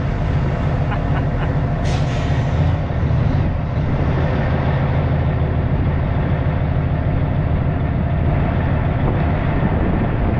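Peterbilt semi truck's diesel engine running steadily at low speed as the tractor-trailer creeps through a tight gap between parked trailers, with a short hiss of air about two seconds in.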